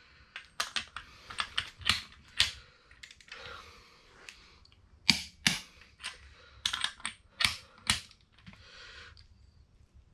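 Sharp metal clicks and clinks of hand tools, a ratchet and wrench, working on an engine's cylinder head. About a dozen come at uneven intervals, with a soft rustle between some of them.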